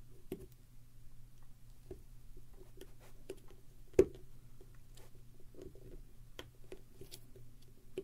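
Small, scattered clicks and scrapes of an iPod Mini's casing being picked and pried at by hand, with one sharper click about four seconds in.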